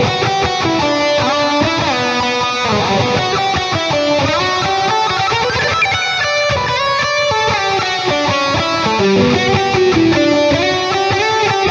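Strandberg Boden 7 True Temperament seven-string electric guitar with Fishman Fluence pickups playing a lead riff through a lead tone: a quick melodic run of single notes that changes pitch throughout.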